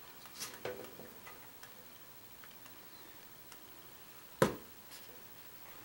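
Faint clicks and rustles of fingers handling a small component on thin wire leads, with one sharp click about four and a half seconds in.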